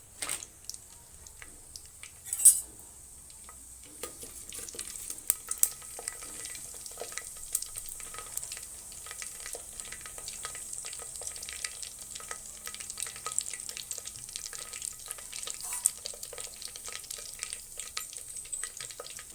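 Mustard, fenugreek and cumin seeds frying in hot oil for tempering, a dense crackling and sizzling that builds up about four seconds in. Two sharp knocks come before it, one at the start and a louder one about two and a half seconds in.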